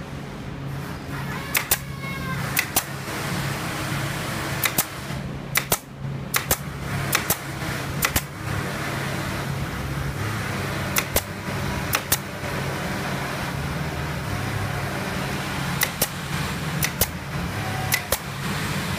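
Pneumatic upholstery staple gun firing staples into sofa fabric: about a dozen sharp shots, each a quick double snap, at irregular intervals with a few longer pauses. A steady low hum of machinery runs underneath.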